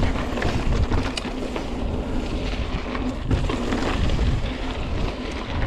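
Wind buffeting a ride-along camera's microphone over the rumble and rattle of a mountain bike riding fast downhill on dirt trail, with scattered clicks from the bike and terrain.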